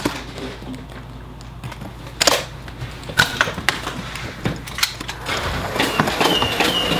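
Irregular knocks and clacks of people moving about with foam-dart blasters: footfalls and the handling of plastic blasters, with two sharper knocks about two and three seconds in.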